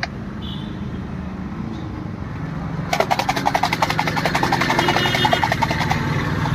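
Ice cubes rattling rapidly inside a pair of glasses as kulukki sarbath is shaken, starting about three seconds in and stopping about three seconds later. Steady traffic hum underneath.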